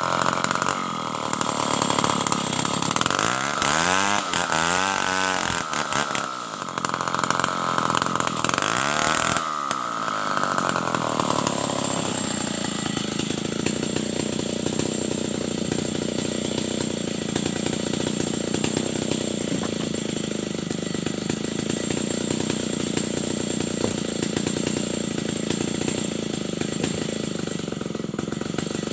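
Stihl 070 two-stroke chainsaw running at high revs, with the engine pitch dipping and recovering twice. About twelve seconds in it settles to a lower, steadier running sound.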